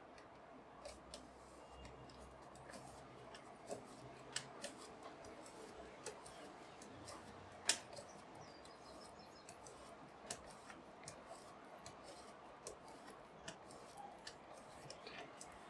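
Faint scraping and scattered small clicks of a pencil pushed hard across a black paper envelope lying on a glass sheet, squeezing the developer pod of Instax Square film to spread the chemical by hand. One click about eight seconds in stands out from the rest.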